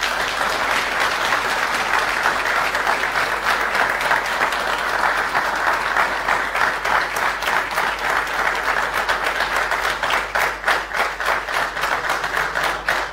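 A large seated audience applauding: many hands clapping at once, starting suddenly and thinning into more separate claps near the end.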